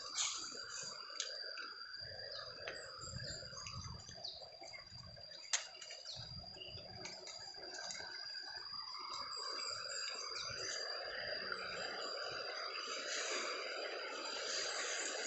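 Running water from a river, with a steady high-pitched whine over it and scattered light clicks; one sharp click about five and a half seconds in.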